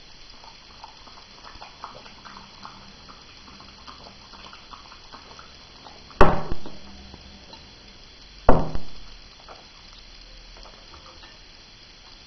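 A Samoyed lapping wetly from a ceramic mug held to its mouth, small soft sounds. About six seconds in and again about two seconds later come two loud knocks, as the ceramic mug is set down on the cloth-covered table.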